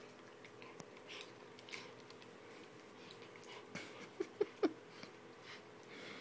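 Saint Bernard–bullmastiff puppy nibbling and licking at its own hind leg, with faint wet clicking. A little past the middle it makes three quick, short squeaky noises in a row.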